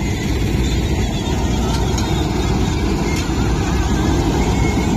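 Dasmesh 9100 combine harvester running steadily while it cuts and threshes paddy: an even, continuous engine-and-machinery noise.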